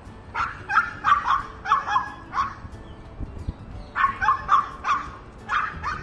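Shih Tzu barking: two quick runs of high-pitched barks, about six or seven in each, with a pause of about a second and a half between them.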